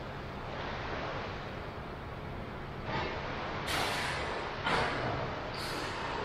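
Choppy indoor pool water sloshing and lapping at the pool edge, then a run of louder splashes about a second apart in the second half.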